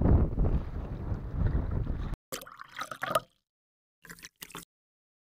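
Wind buffeting the microphone as a dense low rumble, cut off abruptly about two seconds in. After it come a few short, separate bursts of trickling water, with dead silence between them.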